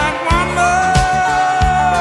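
Background music: a song with a sung melody over a steady drum beat.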